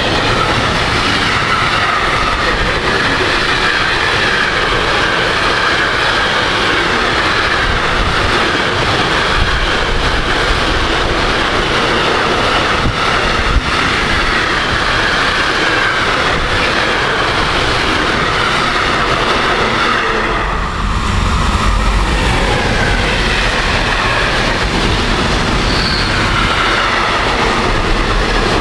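Freight train wagons rolling past at speed close by, a steady loud noise of steel wheels running on the rails. After a brief dip about two-thirds of the way in, another freight train of tank-container wagons rolls by.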